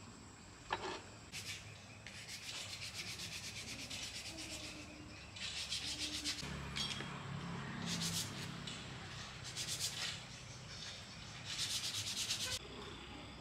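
Abrasive hand rubbing on a part, rapid back-and-forth strokes in several bursts of one to three seconds with short pauses between, after a sharp click near the start.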